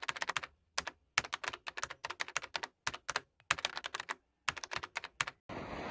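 Computer keyboard typing sound effect: runs of rapid key clicks broken by short pauses. It stops about half a second before the end, giving way to a steady hiss.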